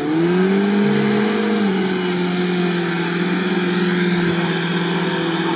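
1978 VAZ-2101 Zhiguli engine running at high revs. The revs climb sharply at the start, ease slightly about two seconds in, then stay up without dropping back. The commentator puts this down to a jammed throttle.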